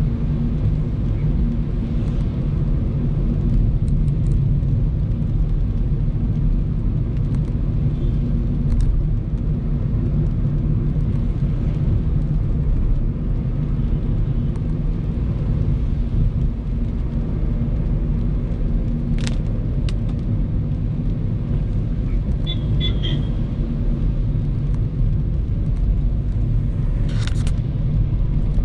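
Steady low rumble of a car's engine and tyres on a wet road, heard from inside the cabin. A few faint clicks come and go, and there is a brief high chirp about 22 seconds in.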